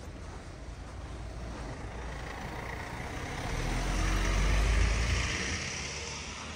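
A van drives past close by: engine rumble and tyre noise build to a peak about four seconds in, then fade as it moves away.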